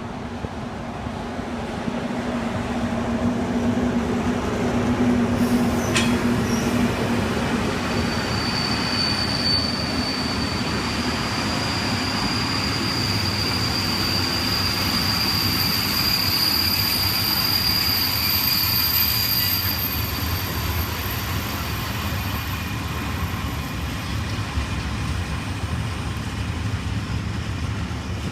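A train passing on the line, its rumble building over the first few seconds and then holding steady. A steady high-pitched wheel squeal sets in about a third of the way through and fades out about two-thirds of the way through.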